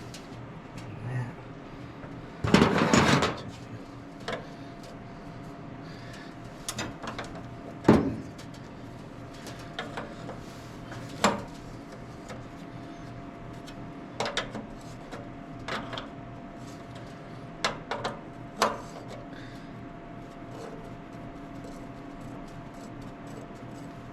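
Hand tools and metal parts clinking and clanking while the carburetor is unbolted from a 1954 International R-110 engine: a loud rattling clatter about three seconds in, a sharp knock near eight seconds, then scattered lighter clicks. A steady hum runs underneath.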